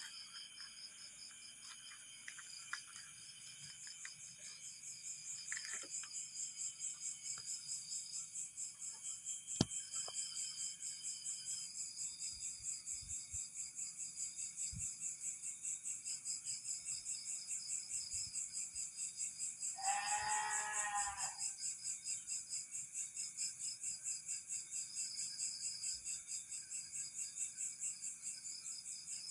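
Night insects, crickets, chirping in a steady pulsing chorus of about three beats a second. About twenty seconds in, a single short wavering call rises over it for about a second.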